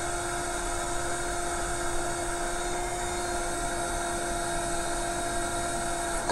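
Cordless drill running steadily at one constant pitch, boring a small pilot hole through the tough metal of a trailer frame.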